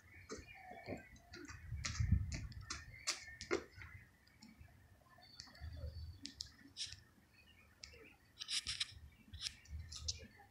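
Small birds chirping in scattered short, high notes and clicks, over a few low rumbles about 2 s in, near 6 s and near the end.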